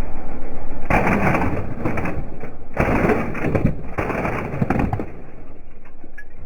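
A car tyre rolling slowly over an object and crushing it: dense crunching and crackling that swells in several surges, over a low rumble.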